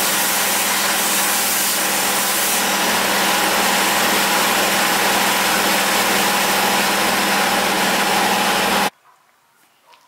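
Dry blast cabinet and its air equipment running: a steady, loud rush of air with a steady hum underneath. It cuts off suddenly about nine seconds in, leaving near silence.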